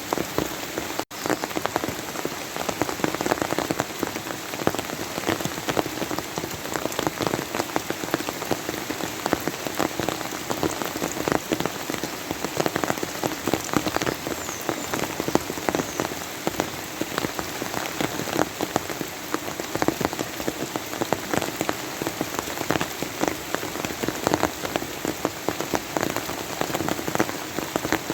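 Steady rain falling, a dense, even patter of many drops on a surface. The sound cuts out for an instant about a second in.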